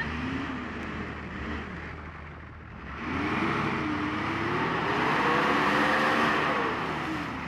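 Nissan Patrol off-roader's engine revving hard as it claws through deep mud with its wheels spinning and throwing mud. The revs climb about three seconds in, hold high, then drop near the end.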